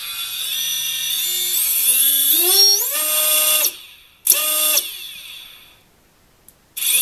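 Propless Cobra 2204 brushless quadcopter motor spun on the bench by its KISS ESC. Its whine rises in steps as the throttle is raised, holds briefly and cuts off about halfway through. A short burst follows, dying away, and another spin-up starts near the end. The motor sounds as if it is running normally, unlike the damaged one.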